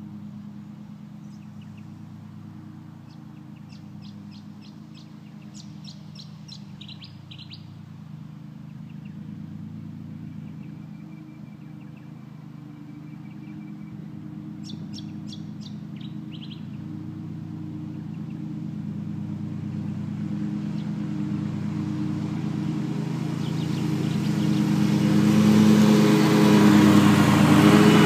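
2011 Hustler Super Z zero-turn mower's engine running steadily, growing louder and louder as the mower approaches, loudest near the end. Small birds chirp in short bursts twice, early on and about halfway through.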